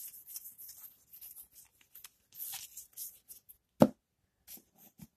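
Paper and chrome baseball cards being flipped and slid through the hands, a dry rustling and scraping of card stock, with one sharp knock about four seconds in, as of a stack set down on the table, and two lighter taps after it.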